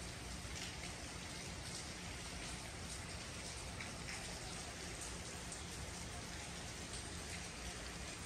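Rain falling steadily: an even hiss with scattered single drops ticking close by on wet paving.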